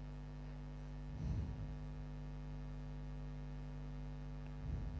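Steady low electrical hum with many even overtones, with a faint brief low sound about a second in and another near the end.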